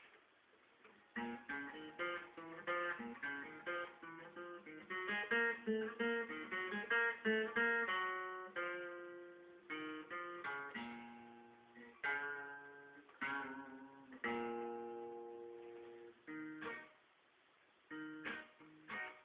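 Acoustic guitar played solo: picked single notes and strummed chords, some chords left to ring. It starts about a second in and pauses briefly near the end before going on.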